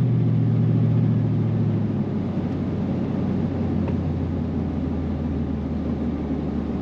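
Pickup truck engine and tyre noise heard inside the cab of a 2000 Chevrolet Silverado. The engine hum drops a little in pitch and loudness over the first two seconds, then settles into a steady low drone under an even road noise.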